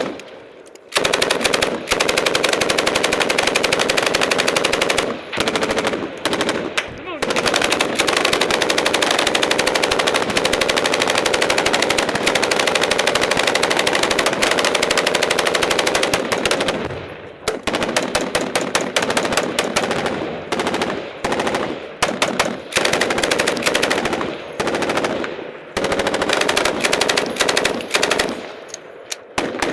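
Automatic gunfire in long, near-continuous bursts of rapid shots, broken by a few short pauses, the clearest just over halfway through and another near the end.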